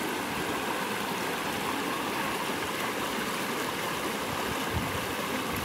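A shallow mountain river rushing steadily over rocks and a small cascade.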